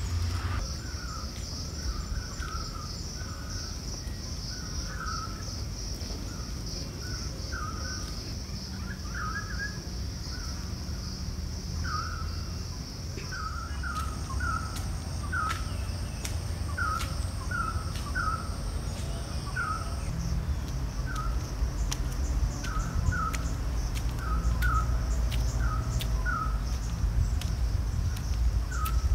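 Outdoor hillside ambience: birds give short calls over and over, about one or two a second, over a steady high-pitched buzz and a low rumble.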